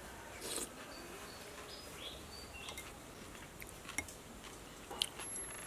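A metal spoon clicks sharply against a ceramic bowl, twice in the second half, while a person eats. Short, faint bird chirps sound in the background.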